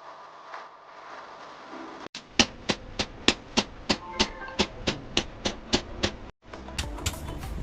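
A run of about a dozen sharp, evenly spaced clicks, roughly three a second, which stops suddenly near the end.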